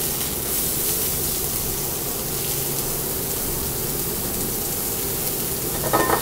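Julienned vegetables sizzling steadily in hot olive oil in a sauté pan, just added to the pan.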